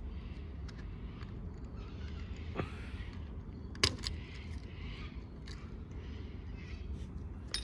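A few small clicks and taps of two-stroke lawnmower carburettor parts being handled and taken out by hand, the sharpest about four seconds in, over a steady low background noise.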